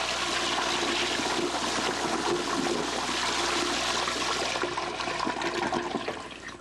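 Toilet flushing: a loud rush and gurgle of water that tapers off near the end.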